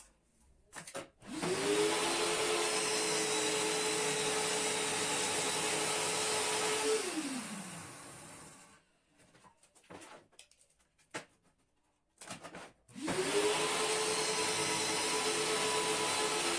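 Circular saw cutting a marine-grade MDF panel, run twice: the motor spins up and runs steady through the cut, then winds down about seven seconds in. After a few seconds of quiet with a few light knocks, it spins up again about thirteen seconds in and is still cutting at the end.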